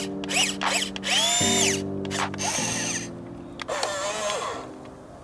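Electric servos on a Huina 1550 RC excavator whining as they move the arm and bucket through wet sand, several moves in a row, each whine rising, holding and falling away over a steady motor hum.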